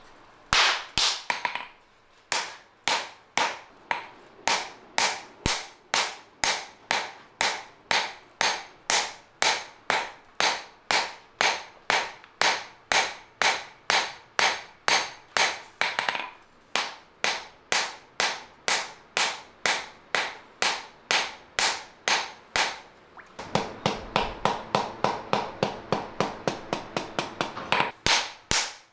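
Hand hammer striking a red-hot steel knife blank on an anvil, steady sharp blows about two a second, pausing briefly twice; being forged into a kitchen-knife shape. About three-quarters through, a steady rushing noise comes in under the blows, which come quicker.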